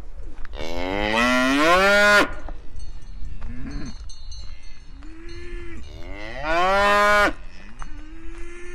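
Cattle mooing: two long, loud moos that rise in pitch, with several shorter, quieter lows between and after them.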